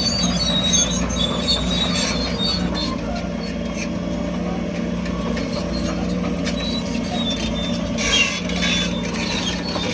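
Crawler bulldozer's diesel engine running steadily, with high metallic squeals from its steel tracks in the first few seconds and a brief rush of noise about eight seconds in.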